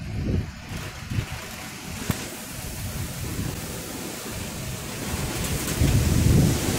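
Bordoisila pre-monsoon storm: strong gusty wind blowing through trees and banana plants, with the hiss of rain and deep rumbling surges of wind against the microphone. The gusts grow louder near the end.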